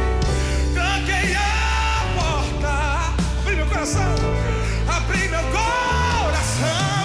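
Live gospel band music: sustained electric bass and keyboard under a singer's wavering, drawn-out vocal lines.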